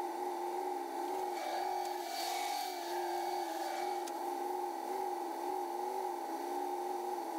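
Fast-forwarded sound of an idling car engine with its twin electric radiator cooling fans running: a fairly quiet, steady hum that wavers slightly.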